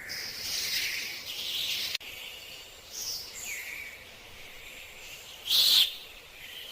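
Parrots calling in short, noisy chirps and squawks, with one loud, brief squawk about five and a half seconds in.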